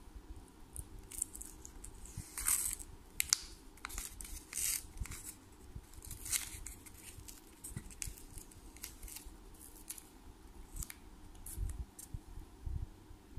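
Short scratchy bursts of crinkling and tearing as the backing paper is peeled off a self-adhesive glitter-sheet disc. The loudest bursts come about two to three seconds in and again around six seconds.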